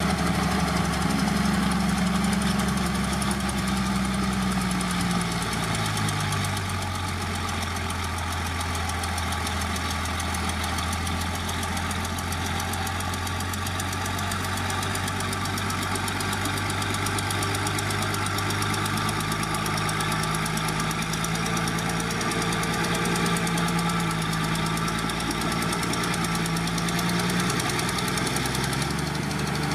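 Heavy diesel engine of earthmoving machinery running steadily. Its pitch drops about five seconds in and climbs partway back a little past the halfway point.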